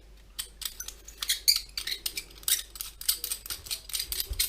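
Irregular small clicks and taps of the parts of a 1/14-scale RC truck wheel being handled and fitted together.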